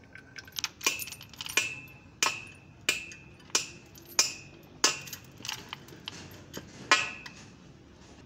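Sharp metallic clinks of a steel lifting chain on a Toyota 3B diesel engine as it is handled. About every two-thirds of a second, each clink rings briefly, with the loudest about seven seconds in.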